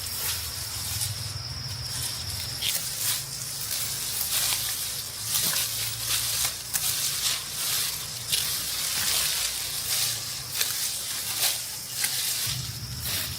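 Dry rice stalks and heads rustling and crackling as they are handled, in many short irregular crackles. An insect's steady high-pitched buzz sounds at the start, stops a few seconds in, and comes back near the end.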